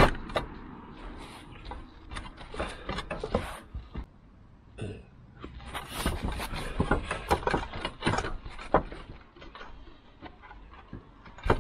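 Roof tiles being handled by gloved hands: irregular knocks, taps and scraping as a tile is worked loose beside the mounting rail.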